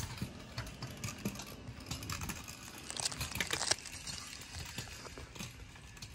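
Kick scooters' small plastic wheels rolling over a concrete driveway and sidewalk: an irregular run of clicks and rattles, with a brighter, hissier stretch about three seconds in.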